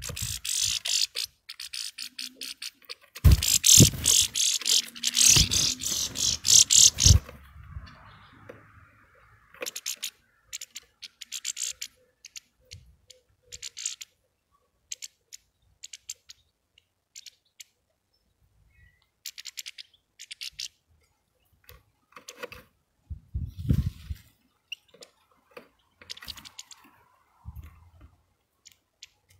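Small birds at a sunflower-seed feeder close to the microphone: a dense flurry of wing flutter and scuffling with a few heavy thumps for the first seven seconds, then scattered sharp clicks of seeds being picked over and a brief second flurry about three quarters of the way through.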